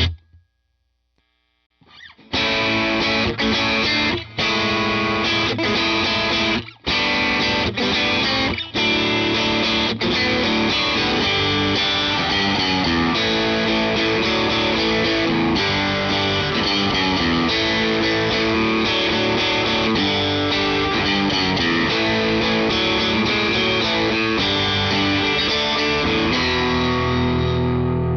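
Solo electric guitar, a Fender Rosewood Telecaster played through a Fender SuperSonic 22 tube combo amp with no effects. It comes in after about two seconds of silence and stops briefly three times in the first several seconds. Then it plays on continuously until it dies away near the end.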